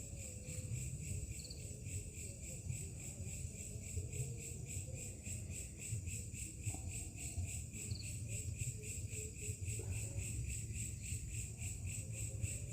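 A steady, rapidly pulsing high-pitched trill, like insects chirping, over a low rumble.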